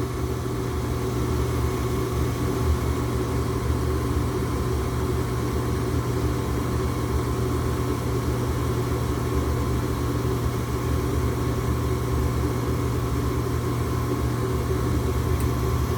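Weather King gas furnace running with a steady motor hum during an ignition attempt that fails: the burners do not light, and it seems no gas opens up.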